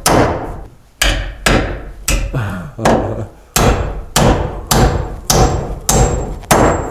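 Steel framing hammer with a wooden handle driving nails overhead into a wooden fan block against the ceiling joists: a run of about a dozen sharp blows, roughly two a second, each with a brief ring.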